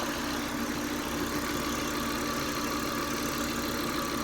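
Volvo S60's inline five-cylinder engine idling steadily.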